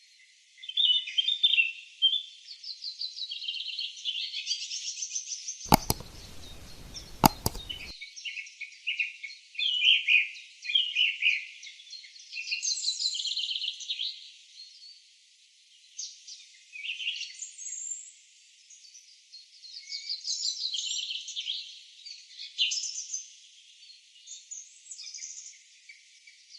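Small birds chirping and trilling in rapid bursts, in quick fast-repeating phrases. Two sharp clicks break in at about six and seven seconds.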